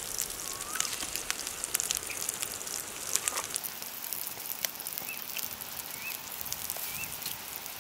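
Onions and green chillies frying in oil in an aluminium pot over a wood fire: a steady sizzling hiss with many small crackles and pops.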